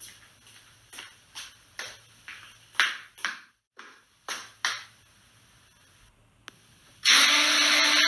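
A run of short, irregular scraping strokes about two to three a second, then a quieter gap. Near the end an electric hand blender starts suddenly and runs loud and steady with a motor whine.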